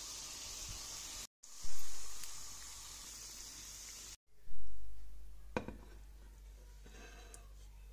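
Hot oil sizzling steadily around dough pastries frying in a cast-iron pan, with two brief drop-outs. About four seconds in the sizzle stops, leaving a faint low hum and a single light click.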